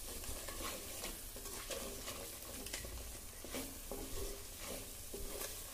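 Wooden spatula stirring and scraping a thick masala paste around a clay pot, the paste sizzling in hot oil, with short irregular scrapes.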